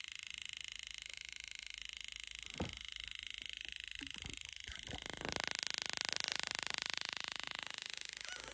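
Rapid, steady ticking from an electric-field detector sensing the field of a high-voltage spark-gap setup. It grows louder and hissier about five seconds in. A single sharp click sounds about two and a half seconds in.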